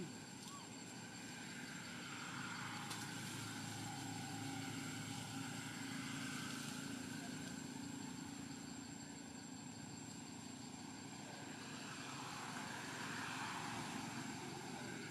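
Low steady hum of distant engine traffic, swelling a couple of seconds in and again near the end, over a faint constant high whine.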